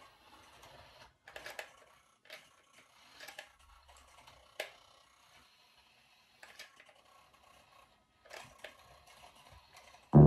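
Faint, scattered small clicks and light scrapes at irregular intervals, with no steady motor sound. Piano music starts suddenly just before the end.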